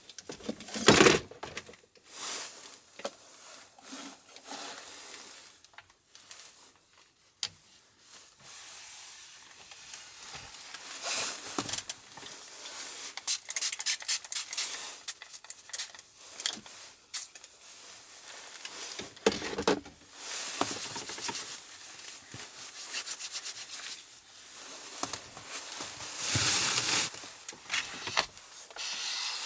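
Rustling, rubbing and clicking of small objects and plastic packaging being handled on a wooden table, with a spell of fine crinkling in the middle and louder rustles near the end.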